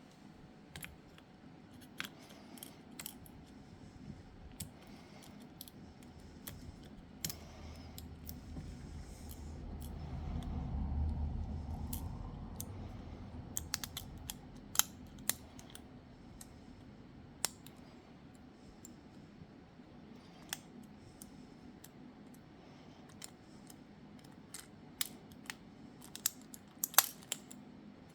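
Small tools and phone parts clicking and tapping as a new motherboard is fitted into a smartphone's frame. Scattered sharp clicks come throughout, thicken into a quick cluster near the end, and a low rumble swells for a few seconds around ten seconds in.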